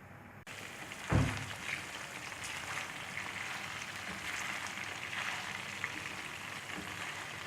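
Marinated chicken pieces shallow frying in oil, a steady crackling sizzle that starts abruptly half a second in. A loud low thump about a second in.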